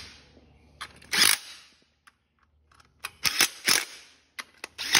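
Cordless DeWalt impact driver hammering in several short bursts as it runs bolts down, with a pause of about a second in the middle.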